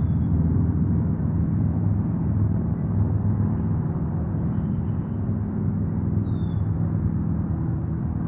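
Steady low rumble with a faint hum in it. A short, high, falling chirp comes about six seconds in.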